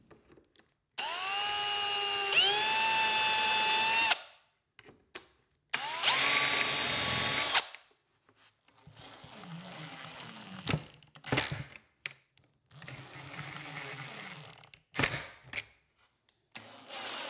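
Cordless drill spinning a self-centering bit to pre-drill screw holes for Blum undermount drawer-slide front clips: two high-pitched whines of a few seconds each, rising in pitch as the drill spins up. Then the drill drives screws into the clips at a lower, quieter speed, each run ending in a sharp click.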